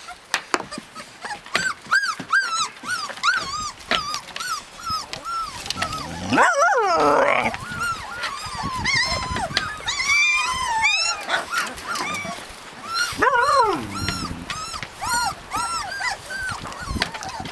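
Husky puppies whimpering and squeaking over and over in short, high-pitched cries, with two louder, longer cries that slide down in pitch about six and thirteen seconds in.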